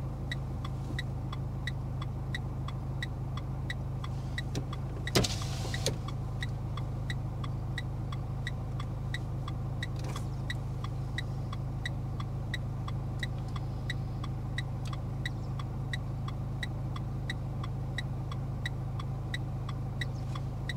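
Car cabin with the engine humming steadily and the indicator relay ticking at an even rate throughout. About five seconds in there is a single sharp knock.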